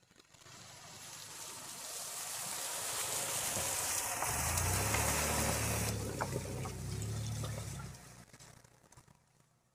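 A compact SUV driving slowly past over fallen dry leaves and grass: tyres rustling and crackling through the leaves, growing louder as it nears. A low engine hum comes in as it passes close, about four seconds in, and the sound fades away near the end.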